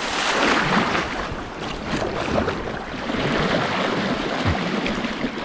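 Paddle strokes splashing and water rushing along the hull of a moving inflatable kayak, a steady noise that swells and eases with the strokes.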